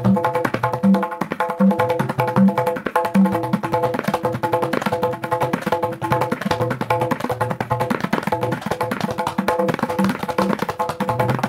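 Tabla playing teentaal: rapid finger strokes on the dayan over deep strokes on the bayan, which fall at a steady pulse for the first few seconds, pause, then return near the end. Steady held tones sound under the drumming.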